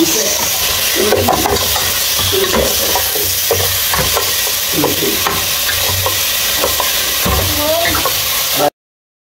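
Pieces of meat sizzling as they brown in a pot, stirred and scraped with a wooden spatula, with a steady hiss and scattered knocks against the pot. The sound cuts off abruptly near the end.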